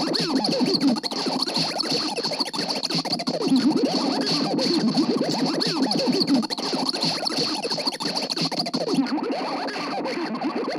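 Lo-fi experimental noise loop: a dense, continuous tangle of overlapping swooping and warbling tones that slide up and down in pitch, over a steady high whine.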